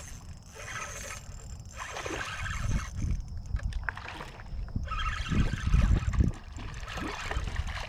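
A hooked fish splashing and swirling at the water's surface while it is fought from a kayak, mixed with irregular low knocks and rumbles from the kayak and rod being handled, loudest about six seconds in.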